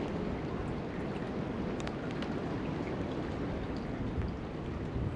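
Wind buffeting the microphone as a steady low rumble, with a few faint scattered ticks.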